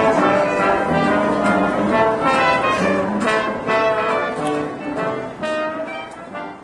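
Brass music, with trumpets and trombone playing a lively run of notes, fading out near the end.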